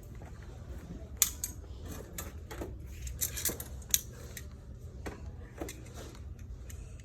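Metal hinges and hardware clinking and rattling as they are handled, with a couple of sharper clinks, over a steady low hum.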